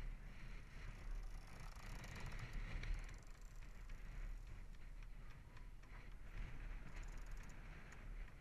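Water washing along the hull of a moving catamaran, swelling and easing, over a steady low wind rumble on the microphone. Scattered light ticks come in from about halfway.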